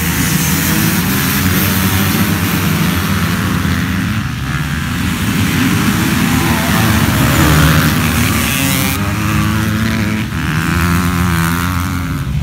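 A pack of motocross dirt bikes accelerating hard off the start line and riding past together, many engines at high revs overlapping, with pitches rising and falling as riders shift.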